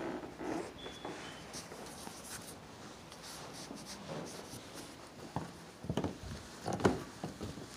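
Faint rustling of a handheld phone and clothing, with soft footsteps on carpet and a few dull thumps near the end as the carpeted stairs are climbed. The building is otherwise quiet, with no noise from the neighbours' apartment.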